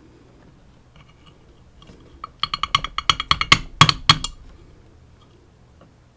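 A quick run of about a dozen sharp, ringing metallic taps and clicks, between about two and four seconds in, as tools and small metal parts work in an Elzett Seclox dimple lock during disassembly to remove its pins.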